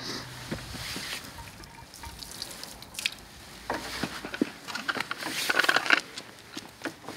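A siphon foot pump and its clear plastic tubing being handled and pulled loose: scattered small clicks and rustles, busiest in the second half.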